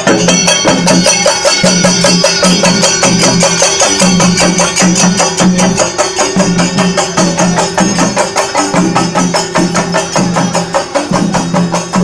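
Chenda melam: chenda drums beaten in fast, dense strokes with hand cymbals ringing along.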